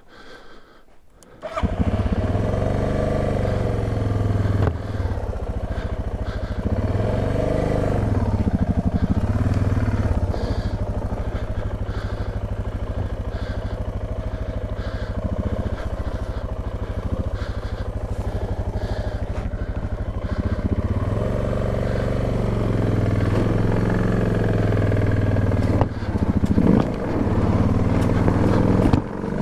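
Suzuki DR650's single-cylinder engine starts up about a second and a half in, then runs with repeated rises and falls in revs. The engine is under load as the heavy bike is walked up a soft, loose dirt slope.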